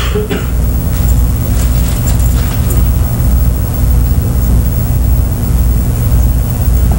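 A loud, low machine-like drone pulsing in a regular rhythm, with a few faint clicks near the start.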